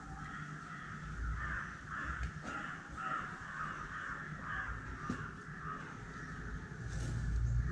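Crows cawing over and over, with a few sharp clicks.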